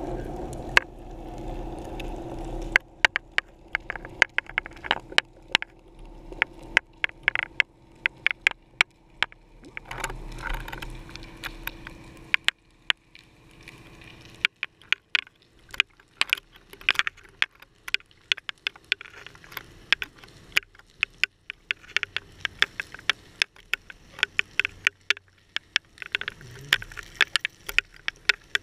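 Underwater sound picked up by a GoPro in its waterproof housing on a fishing line: many sharp, irregular clicks and crackles, over a low hum that dies away about three seconds in and returns briefly around ten seconds.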